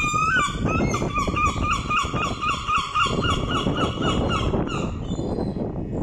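A gull calling, a long run of quick repeated notes, about five a second, that fades out about five seconds in. Under it is the low rumble of a Southern Class 377 electric multiple unit pulling into the platform.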